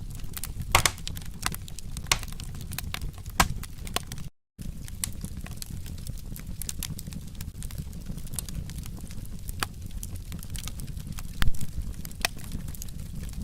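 Wood fire crackling, with irregular sharp pops and snaps over a steady low rumble of burning. The sound cuts out completely for a moment about four seconds in.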